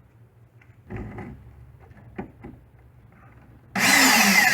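A few light knocks of handling, then a power tool switches on near the end and runs loud, its pitch wavering up and down as it works into the wooden cabinet to cut extra fresh-air openings.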